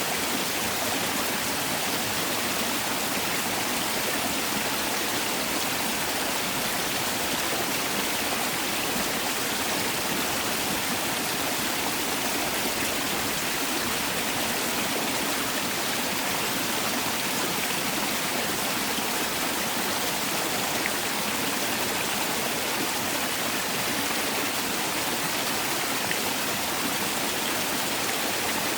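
Mountain valley stream rushing steadily over rocks, a continuous even splash and babble of flowing water.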